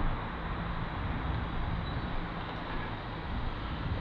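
Aprilia Classic 50 moped's two-stroke engine idling steadily.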